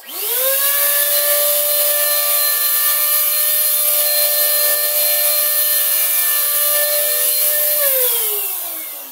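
A handheld power tool's electric motor is switched on and spins up within half a second to a steady whine with a loud hiss. It runs for about eight seconds, then is switched off and winds down, its pitch falling.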